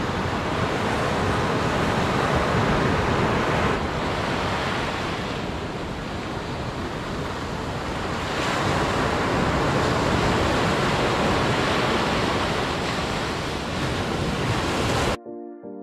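Sea surf washing onto a beach, with wind buffeting the microphone; the wash swells and eases in slow waves. It cuts off abruptly just before the end, giving way to piano music.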